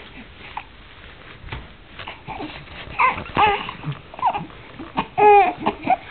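Young babies vocalizing: a few short pitched coos and whines, the loudest and longest one a little after five seconds in.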